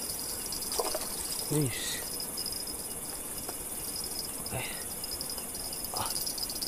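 Steady high-pitched chorus of night insects chirping, with a few faint, short voice sounds over it.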